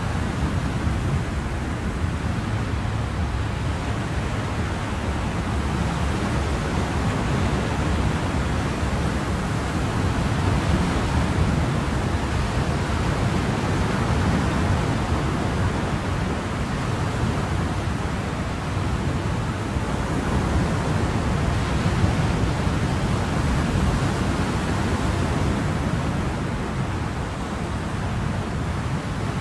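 Ocean surf: a continuous, dense rush of breaking waves, heaviest in the low end, with gentle slow swells in loudness.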